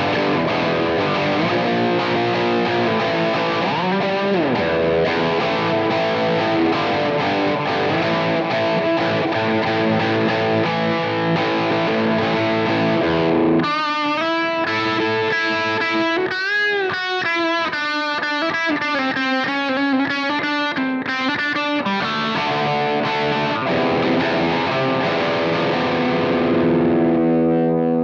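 Distorted electric guitar played through a Marshall SC20H JCM800 Studio head, heard from the amp's line out through a speaker-cabinet impulse response, with a Boss drive pedal in front and a Boss DD-8 delay. Heavy rhythm riffing gives way about halfway to a single-note lead with pitch bends and vibrato, then thick chords return and end on a held, ringing chord.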